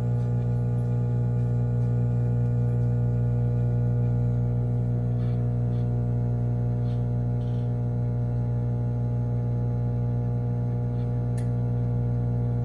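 Microwave oven running mid-cycle: a steady, even hum with a strong low drone and a few faint ticks.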